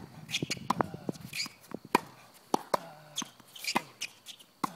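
Tennis rally on a hard court: a string of sharp ball hits, racket strings and bounces, one every second or so, the loudest about two seconds in.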